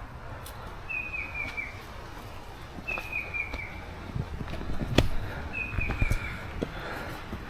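A forest bird repeats the same short call three times, each a quick run of notes stepping down in pitch, about every two and a half seconds. Footsteps and scattered sharp clicks sound over a low rumble, with one louder click about five seconds in.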